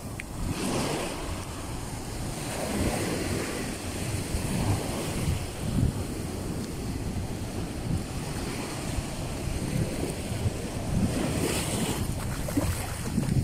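Small waves breaking and washing up the sand, with wind rumbling on the microphone. The wash swells up about a second in and again near the end.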